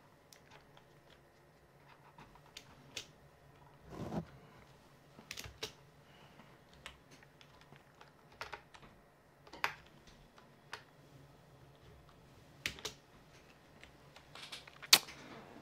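Slow, hesitant typing on a G-Lab Keyz Iridium keyboard: single key clicks a second or more apart, some in quick little runs, with a heavier, deeper keypress about four seconds in and a sharp click near the end.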